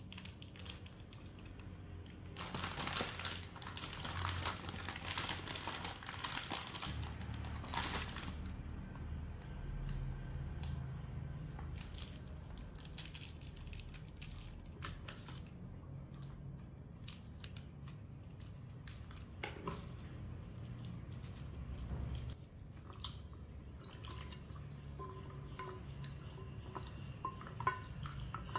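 A plastic packet of dried Chinese herbs crinkling for several seconds as pieces are taken out, then small clicks and light handling as they drop into a steel bowl of water. Near the end, water sloshes as hands rub the herbs in the bowl, over a low steady hum.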